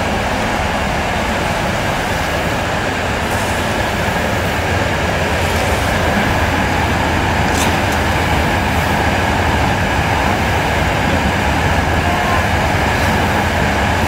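Continuous carbonization furnace running: a loud, steady mechanical drone from its electric motor, gear reducer and chain drive, with a low hum underneath.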